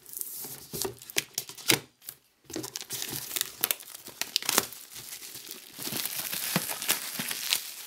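Plastic shrink-wrap film being torn and peeled off a cardboard box by hand, crackling and crinkling with many sharp clicks, with a brief pause a little after two seconds in.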